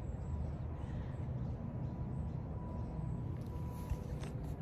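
Steady low outdoor rumble with no speech, and a few soft clicks near the end.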